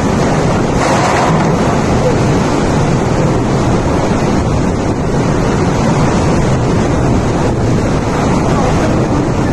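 Cyclone wind blowing hard against the microphone: a loud, steady rush of noise with a brief stronger gust about a second in.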